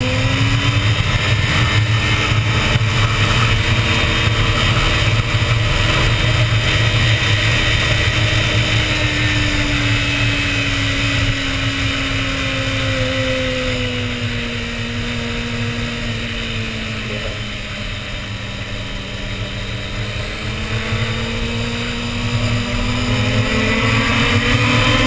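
Motorcycle riding at speed: engine running under a constant rush of wind and road noise, its note sinking slowly over most of the stretch and rising again near the end as it picks up speed.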